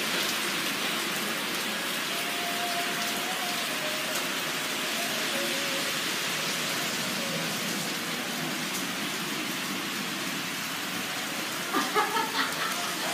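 Heavy rain falling steadily, a constant hiss of drops on the surfaces around. A few short voice-like sounds come through near the end.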